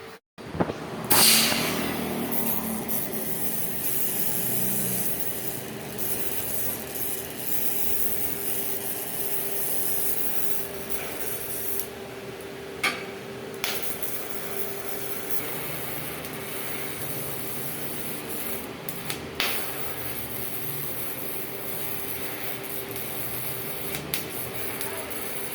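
TIG (GTAW) welding arc on carbon steel pipe: a steady hiss with a constant faint hum, starting abruptly just after the beginning, with a few short sharp clicks later on.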